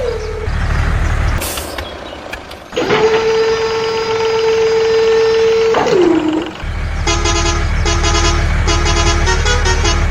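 Vehicle horn giving one long, steady blast that drops in pitch as it ends, then an engine running with a series of short horn toots over it.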